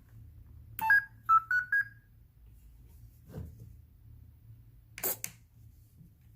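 Electronic speed controller of a WPL C54 RC truck beeping on power-up: a quick double beep, then three short beeps stepping up in pitch. A soft knock follows, and a short rattle near the end.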